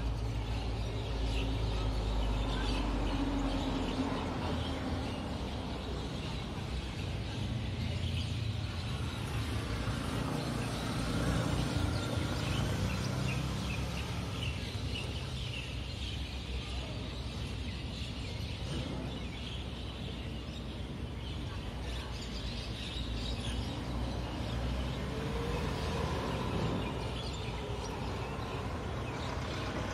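Outdoor ambience: birds chirping throughout over a steady low background rumble.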